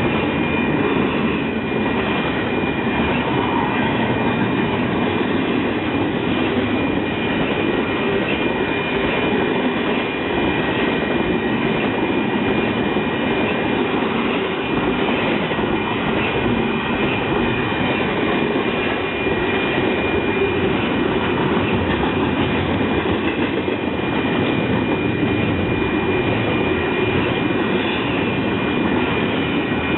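Train cars rolling past on the track: a steady rumble and clatter of wheels on rail, with a thin high steady tone over it.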